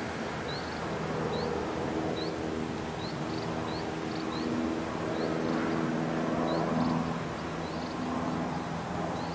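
Outdoor ambience: a steady low drone of several held tones that shift in pitch about midway through, with short high rising chirps repeating every half second or so.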